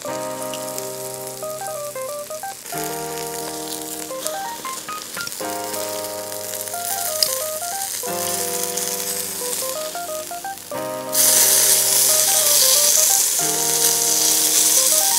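Background music with a repeating melodic figure. About 11 seconds in, a thick block of beef tongue sizzles loudly on a shichirin charcoal grill as it is turned onto a fresh face, and the sizzle becomes the loudest sound.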